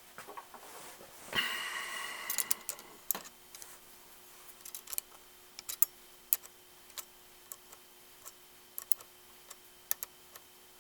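Small wrench working a threaded standoff into a carburettor choke arm by hand: a brief metallic scrape about a second and a half in, then a string of light, irregular metal clicks as the wrench is repositioned on the standoff for short turns.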